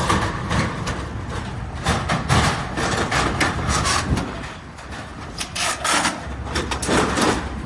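A vehicle engine idling with a steady low rumble, overlaid by a string of sharp knocks and clatter.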